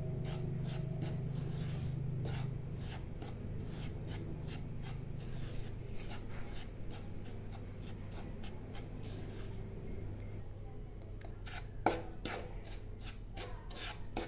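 A spatula scraping and stirring dry powder around a nonstick pan, a quick rasping stroke about twice a second, with one sharper knock about twelve seconds in. A low steady hum runs underneath and is louder for the first two seconds or so.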